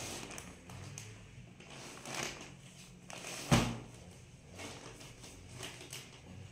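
Plastic wrapping of a pack of disposable diapers rustling as it is handled, then a single sharp thump about three and a half seconds in as the pack is dropped flat onto a foam play mat.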